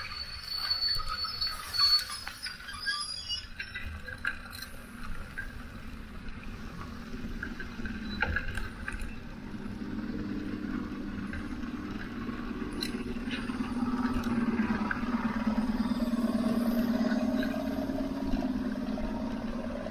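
A motor vehicle running, its hum growing louder through the second half. A steady high whine is heard in the first second, and light clicks and rattles come in between.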